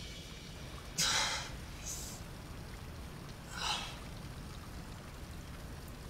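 A man's sharp breaths of pain, two gasps: a sudden one about a second in and a shorter one about three and a half seconds in, over a low steady background rumble.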